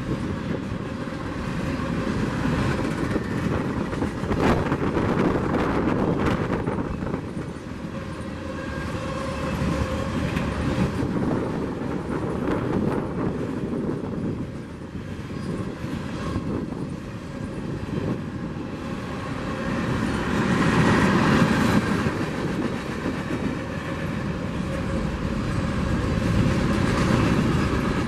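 CPKC freight train rolling past, with steady rail noise and wheel clatter over the rail joints, swelling and easing as the cars go by.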